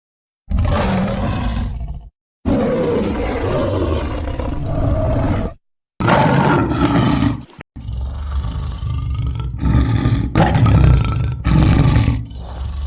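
Animal-like roars offered as the call of the Ozark Howler: three long, rough roars, each cut off by a short silence, then a choppier run of shorter roars and growls.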